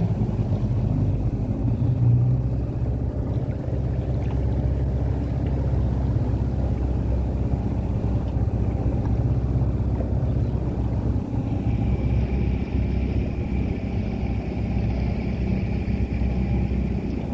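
Small boat's motor running steadily with a low rumble; a faint, high, steady whine joins about two-thirds of the way through.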